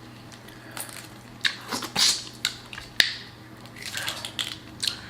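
Close-up eating of boiled crawfish and shrimp: irregular cracks, crunches and wet smacks as shells are broken and peeled and the meat is chewed, with one sharp snap about three seconds in.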